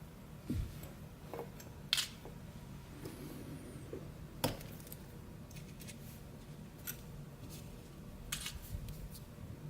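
Scattered sharp clicks and light taps of small metal lock parts and tools being handled as an ASSA d12 cylinder is taken apart, with a soft thump near the start and the loudest clicks about two seconds in, halfway through, and in a short cluster near the end.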